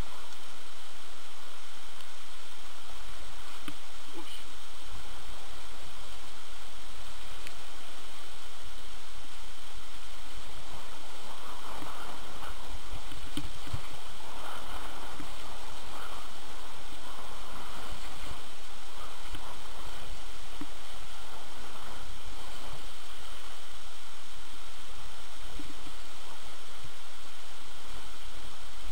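Steady rushing hiss of skis sliding and scraping over snow during a downhill run, with wind rumbling on the camera's microphone.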